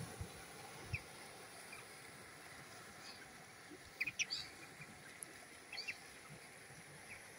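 Short, high chirping calls of ruddy turnstones: a few single chirps, then a quick cluster about four seconds in and another near six seconds, over a faint low background rumble.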